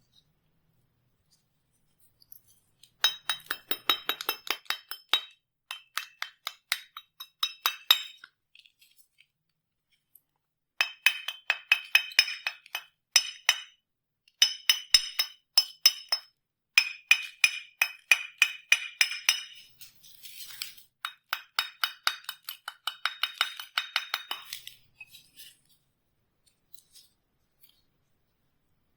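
Metal struck in quick, light taps, several a second, each with a short high ring. The taps come in five runs of a few seconds each, separated by pauses.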